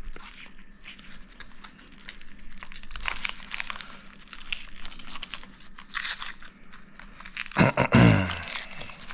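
Packaging being torn open and crinkled by hand, a steady run of irregular crackles and crunches. About eight seconds in comes a brief louder sound that falls in pitch.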